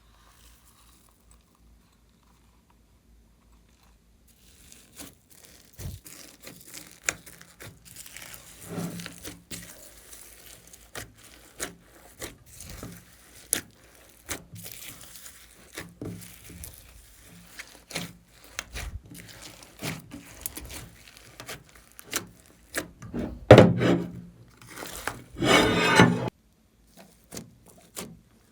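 Hands working glossy slime, starting a few seconds in: a run of short sticky clicks and crackles, with two louder, denser stretches of squishing near the end.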